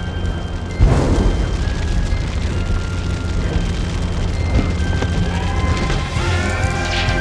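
Film sound effects of a derailing train: a steady deep rumble with a heavy boom about a second in. Music score with held notes plays over it and swells near the end.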